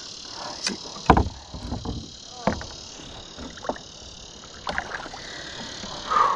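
A hooked fish splashing at the surface beside a plastic canoe as it is landed by hand, with several knocks and thumps on the hull, the loudest about a second in. Crickets chirp steadily throughout.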